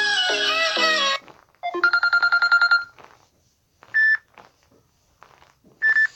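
Android phone ringtone previews cut short one after another as tones are picked from the ringtone list. First a melodic tune lasting about a second, then about a second of rapid, evenly repeating electronic ring tones. Two short single beeps follow near the middle and near the end.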